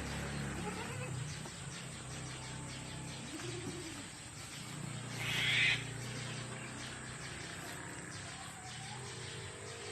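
Birds calling, with a short burst of hiss about five and a half seconds in.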